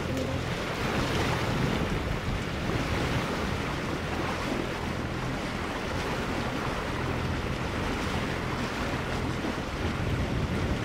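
Wind buffeting the microphone and water rushing along the hull of a sailing yacht under way, over a steady low hum.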